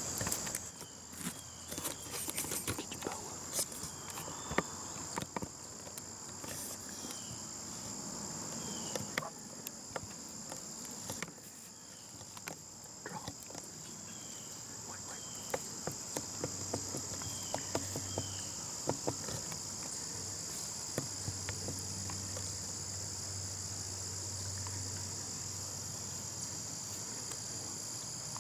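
A steady, shrill chorus of insects singing, such as crickets. Scattered faint clicks and a few short high chirps sound over it.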